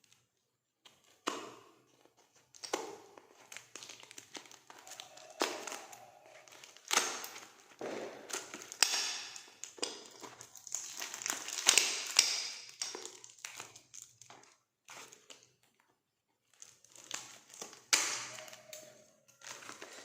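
Plastic packaging being crinkled and torn open by hand, without a cutter, in irregular rustling bursts with a short lull late on.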